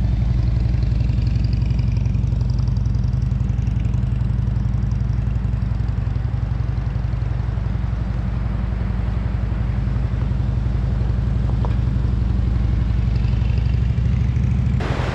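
Motorcycle engine running steadily with a low, even note, changing abruptly just before the end.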